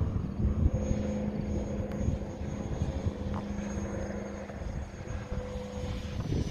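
Electric RC jet's motor running at steady power with a thin high whine, over low rumbling noise.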